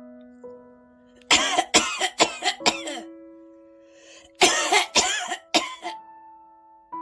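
A person coughing in two fits of about five coughs each, over soft piano music.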